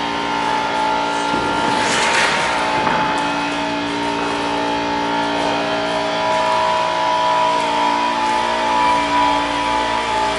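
A motor running steadily with an even hum, with a brief hissing rush about two seconds in.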